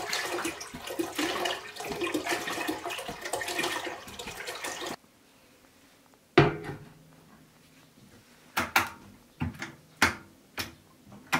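Water pouring from a plastic canister into a steel pot, cut off suddenly about five seconds in. A metal pot is set down with a knock on a Lysva two-burner electric hotplate, then a series of short clicks as the hotplate's control knob is turned.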